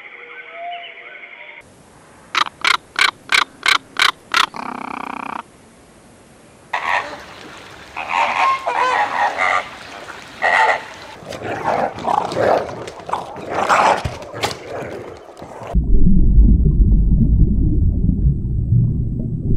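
A run of about seven loud, evenly spaced short calls, then a flock of greater flamingos honking and gabbling over one another. About three quarters of the way through it cuts to a low, steady underwater rumble.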